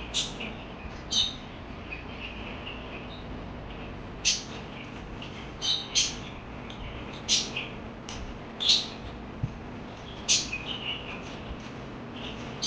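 Pet parakeets chirping: sharp, loud squawking calls every second or two, with softer twittering between them.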